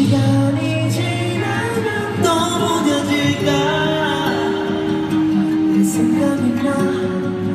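Live pop ballad from a concert: a male singer singing into a handheld microphone over sustained band accompaniment, heard through the arena's sound system from among the audience.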